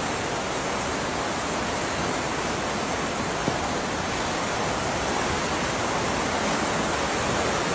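A river in flood, fast brown water rushing steadily down its concrete channel.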